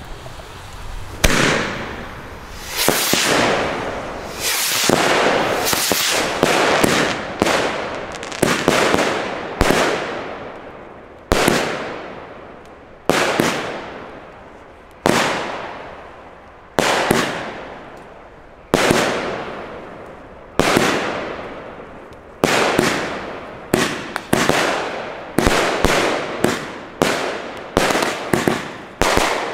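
Weco Heavy Metal Reloaded firework battery firing shot after shot, some two dozen in all. Each shot is a sharp bang trailing off over a second or so. They come about every two seconds at first and quicken into a rapid string near the end.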